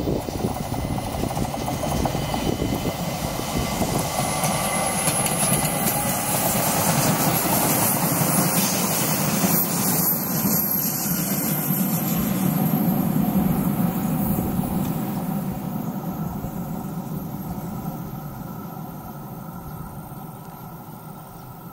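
ÖBB Talent electric multiple unit passing by on the rails: the running noise of wheels and motors grows louder, peaks about halfway through as the train goes past, then fades steadily as it moves away.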